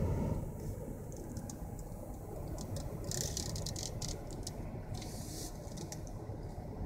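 Steady low rumble of a vehicle on a road, with scattered light clicks and rattles and two brief rustling bursts about three and five seconds in.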